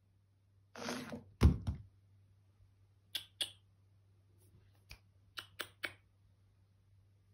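A plastic TV remote control, shoved by a cat's paw, scrapes across a wooden tabletop and drops to the floor with a heavy thud about a second and a half in, with a smaller knock just after. Several light sharp clicks follow later.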